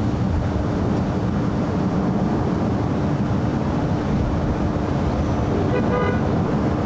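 Steady low rumble of gusting wind buffeting the microphone, under a faint steady hum, with one short horn toot about six seconds in.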